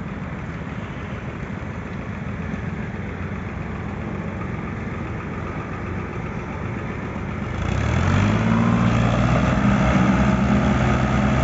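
Diesel tractor engines running under load as one tractor tows another hauling a heavily loaded, stuck sugarcane trolley. About seven and a half seconds in, the engine note grows louder and steadier as the tractors pull harder.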